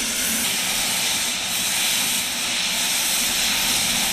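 Steam locomotive blowing off steam, a loud, steady hiss that holds evenly throughout.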